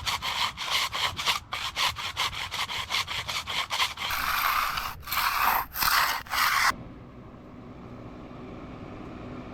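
Stiff-bristle broom dragged across freshly poured concrete to give the slab a broom finish: quick short scratching strokes, about four a second, then a few longer sweeps that stop abruptly about two-thirds of the way through.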